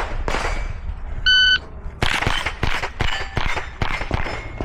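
A shot timer beeps once. About half a second later a fast string of rifle shots begins and runs for about two and a half seconds: a timed string fired at steel targets.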